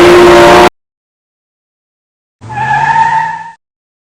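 Edited car sound effect: a loud engine-and-tyre sound cuts off abruptly under a second in. After a second and a half of silence comes a tyre screech of about a second, a steady high squeal over a low engine hum that swells and fades.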